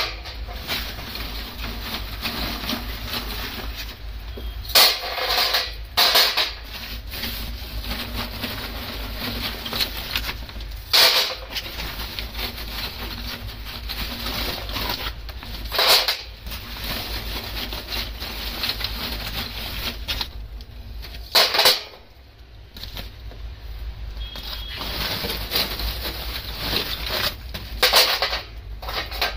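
Lumps of charcoal clattering onto the black metal tray and grate of a mini barbecue grill as they are put in by hand, several sharp knocks spaced a few seconds apart over a steady low hum.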